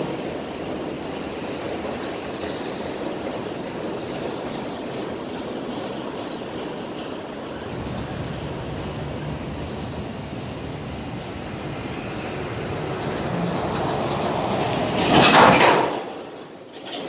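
Freight train of autorack cars rolling past, a steady rumbling noise of wheels on rail. Near the end there is a short, loud rush of noise, the loudest moment, which then drops away sharply.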